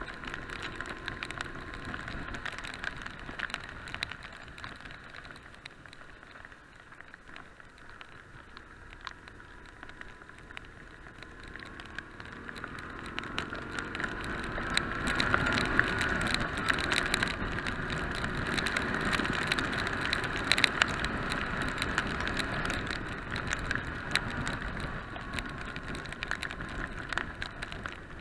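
Heavy rain, with drops ticking sharply on a motorcycle-mounted camera over muffled wind and wet-road noise from the moving bike. It grows louder through the middle and eases near the end.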